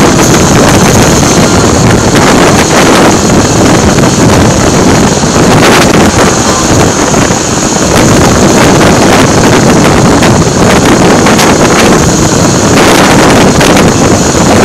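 Loud, steady wind buffeting the microphone of a camera on a moving motorcycle.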